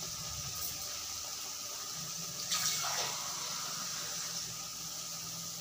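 Spiced vegetables and mustard masala sizzling steadily in a kadai over the gas flame, as an even hiss, with a brief swell about two and a half seconds in.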